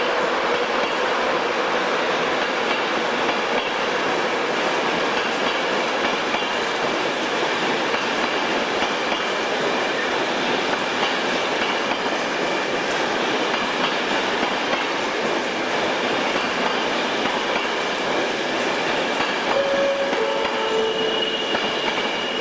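Class 91-hauled electric InterCity train running along a station platform: a steady rumble of wheels on rails with some clatter. About twenty seconds in, a few steady whining tones come in as the end vehicle passes close by.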